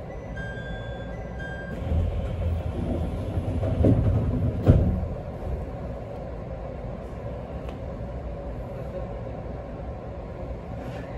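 ET127-series electric multiple unit running along the line, heard from inside the car as a steady rumble. It grows louder for a few seconds near the start and gives one sharp knock about four and a half seconds in.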